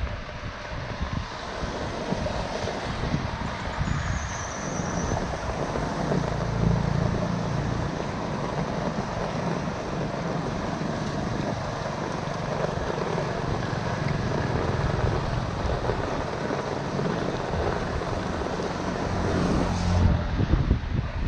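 Steady rain falling on a flooded gutter while water drains into a curb-inlet grate, with a low rumble of wind on the microphone.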